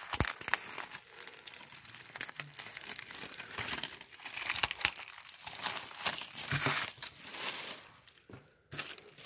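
Clear plastic shrink wrap being torn and peeled off a DVD case and crumpled in the hand: an irregular run of crinkles and crackles that dies away about eight seconds in.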